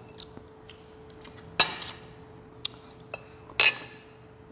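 Metal spoons clinking against ceramic bowls and glassware at a meal table: several sharp clinks, the two loudest, about one and a half and three and a half seconds in, ringing briefly. A faint steady hum underneath.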